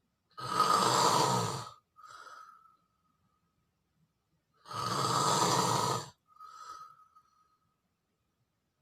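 A person snoring: two loud, rasping snores about four seconds apart, each followed by a quieter breath out with a thin whistle.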